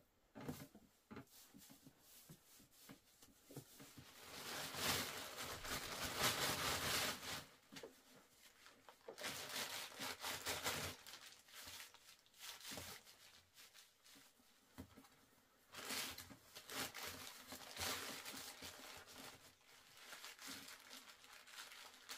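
Rustling and crinkling handling noise in several bursts, loudest from about four to seven and a half seconds in, with more bursts near ten and seventeen seconds.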